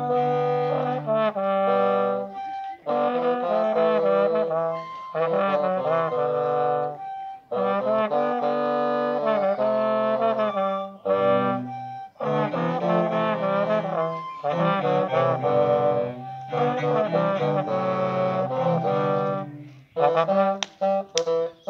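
A small ensemble of brass, woodwinds and cello playing a tune in phrases of a few seconds, with short breaks between them. Sharp clicks come in near the end.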